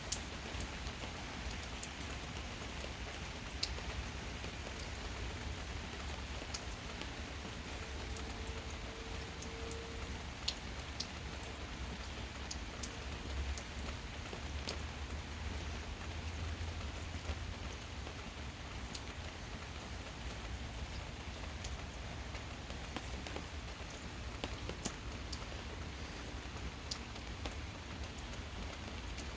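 Steady gentle rain, with scattered sharp drips and taps of drops landing close by over a low even rumble.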